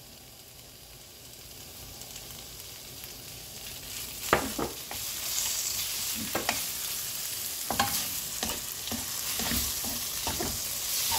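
Seaweed stems, onion and garlic sizzling in oil in a nonstick wok, the sizzle growing steadily louder as the pan heats. From about four seconds in, a wooden spatula and a spoon knock irregularly against the pan as the food is stirred and tossed.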